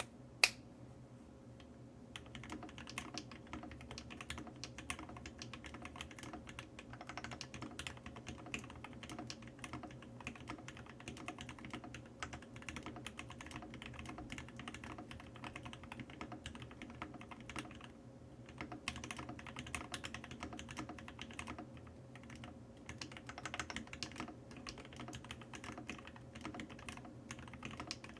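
Continuous fast typing on a custom mechanical keyboard with tactile Everglide Tourmaline Blue v2.5 switches, filmed and lubed with Krytox 205g0, under White HuB keycaps. One sharp click comes about half a second in, and the typing starts about two seconds in, with a couple of short pauses.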